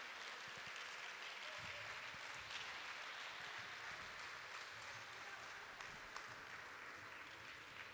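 Audience applauding: steady, fairly faint clapping that eases off slightly near the end.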